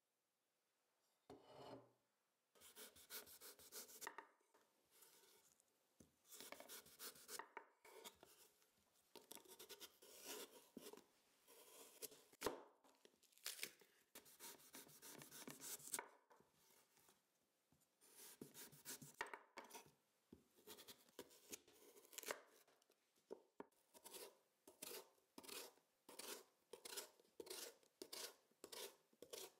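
Chef's knife slicing raw sweet potatoes on a wooden cutting board: crisp cutting strokes through the firm flesh and the blade meeting the board, with one sharp knock partway through. Near the end the cuts come in a quick regular run, about two a second.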